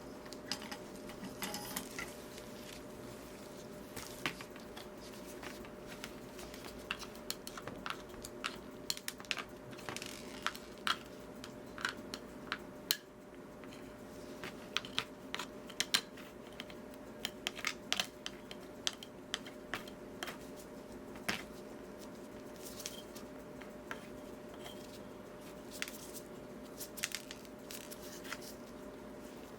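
Irregular light clicks and taps of hand tools and solder work on a stained glass panel, over a steady low hum.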